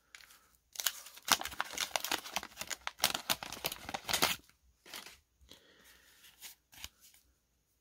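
Wax-paper wrapper of a repacked baseball card pack being torn open and crinkled: a dense run of crackling rips lasting about three and a half seconds, then softer, scattered rustles and clicks as the stack of cards is handled.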